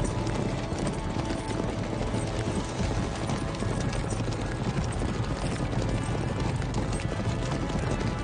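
Hooves of several horses galloping on a dirt track, a dense, continuous clatter.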